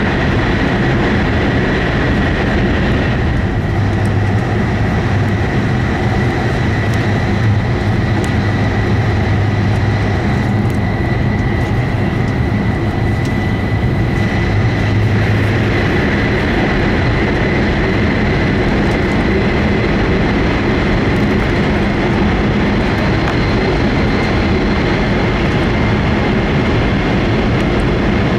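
E5 series Shinkansen running at speed, heard inside the passenger car: a steady loud rush of rail and air noise with a thin high whine held throughout, and a deeper hum that comes in about three seconds in and fades near the middle.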